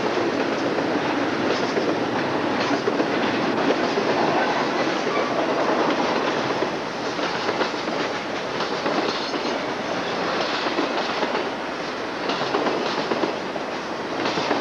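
Double-stack container freight train rolling past close by: a steady rumble and rattle of the cars with steel wheels clicking irregularly on the rails, easing a little about halfway through.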